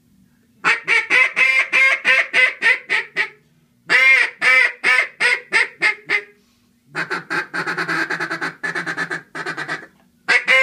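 Acrylic duck calls blown by hand in three runs of quacking notes. The first two runs are about a dozen loud quacks each. The third is a quicker, slightly softer string of short notes.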